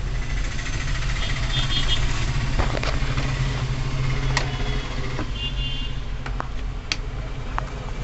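Sharp plastic clicks and taps as the housing parts of a disassembled Nokia phone are handled and set down on a workbench, over a steady low mechanical hum. Two brief high warbling tones sound about a second and a half in and again around five and a half seconds.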